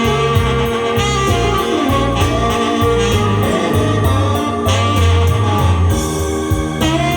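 Tenor saxophone playing a slow melody over a band accompaniment with bass and steady drums.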